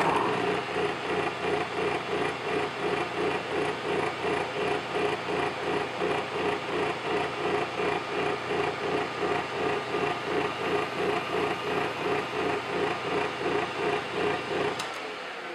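Small metal lathe running at top speed, its chuck and gearing giving a steady hum that pulses regularly, while a carbide tool chamfers the outer edge of a 316L stainless steel ring. The running sound dies away near the end.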